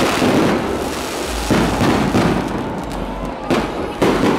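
Aerial firework shells bursting overhead in a rapid series, with a dense crackle throughout. Sharp booms stand out about a second and a half in and again near the end.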